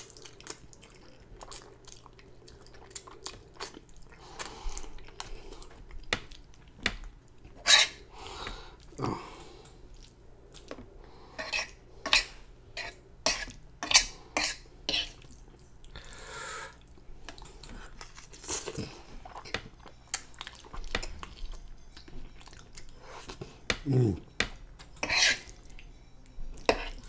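Wet chewing and mouth smacking while eating saucy black bean noodles: an irregular run of sharp smacks and clicks, with the occasional clink of a fork on the griddle pan.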